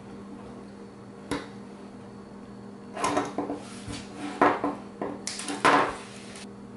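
Small metal hand tools and wire handled on a tabletop: a single click about a second in, then a run of clicks, clacks and short scrapes as wire cutters are picked up and worked on a length of hookup wire. A faint steady hum runs underneath.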